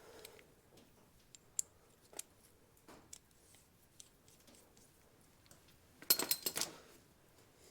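Hand tools and metal parts clinking during work on a UTV's rear suspension: a few faint scattered clicks, then a quick run of sharp metallic clinks about six seconds in.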